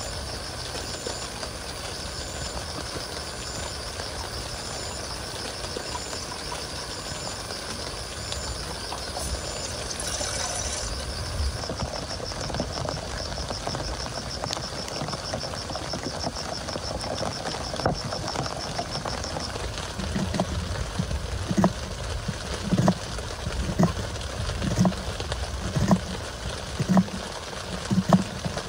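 Steady rain on a tent, with insects chirping in a high pulsing trill that stops about two-thirds of the way through. In the last third come a series of soft knocks, about one a second.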